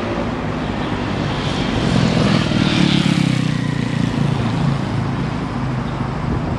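GY6-swapped Honda Ruckus scooter, a single-cylinder four-stroke, riding up and passing close by. The engine grows loudest about two to three seconds in, then drops in pitch and fades as it rides away.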